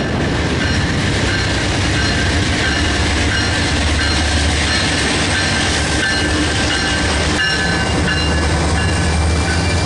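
Diesel freight locomotives passing close by, their engines running loud over the steady rumble of steel wheels on rail as the lead units go past.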